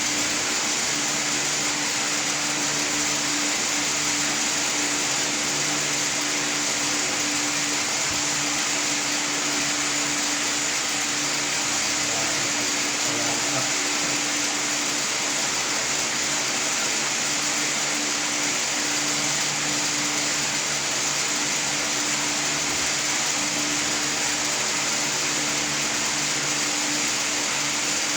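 A small motor-driven machine running steadily: an even hiss over a low hum that wavers slightly, with no change throughout.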